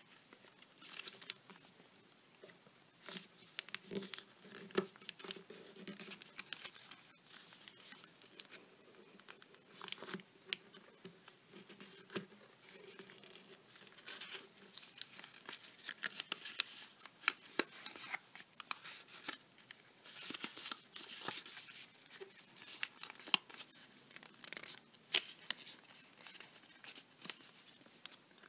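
Origami paper being folded and creased by hand: irregular crinkling and rustling with many short, sharp crackles as a flap is petal-folded and its creases pressed flat.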